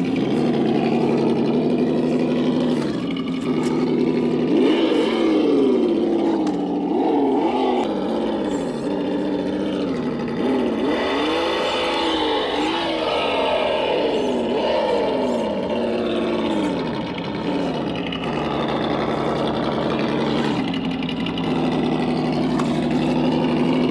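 Simulated engine sound from a KY RC sound kit on a 1/8-scale RC Land Rover crawler: a steady idle, then a run of revs rising and falling over about twelve seconds, settling back to idle.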